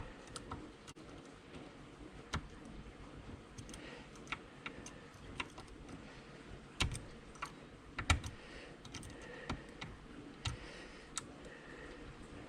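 Tubular lock pick working the pins of a 7-pin tubular lock: irregular small metal clicks, one or two a second, with two louder clicks a little past the middle, as the pins are set.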